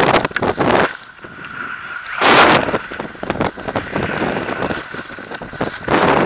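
Wind buffeting the microphone of a harness-mounted camera as a paraglider pilot descends under an open reserve parachute, with strong gusts about half a second in, about two and a half seconds in and near the end.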